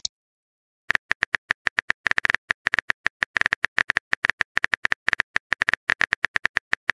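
Smartphone keyboard key-click sound effect: a rapid run of short, sharp taps, about ten a second, starting about a second in, as a text message is typed out letter by letter.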